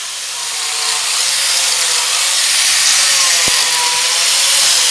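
Angle grinder fitted with a Holy Galahad grinding attachment running and grinding into a wooden seat blank: a steady loud hiss over a motor whine that wavers slightly in pitch, growing a little louder about a second in.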